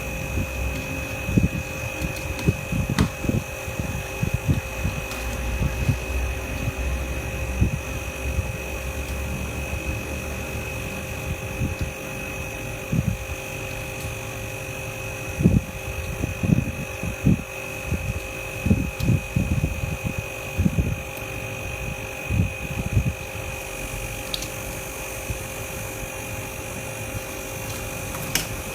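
A small motor humming steadily at one constant high pitch, with irregular low bumps and knocks throughout.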